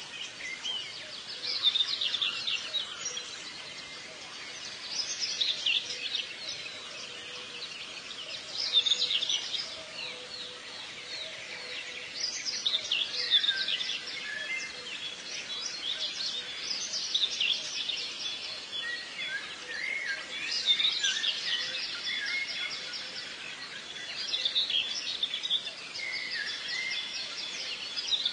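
Small songbirds singing: bursts of fast, high chirping trills every few seconds.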